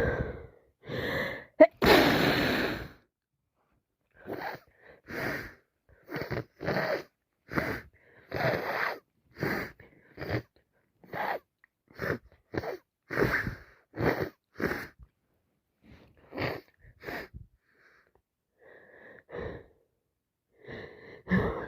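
A person with a cold that has turned into sinusitis in a sneezing fit: one loud, long sneeze about two seconds in, then a run of short, wheezy gasps and sneezes, roughly two a second, which thins out near the end.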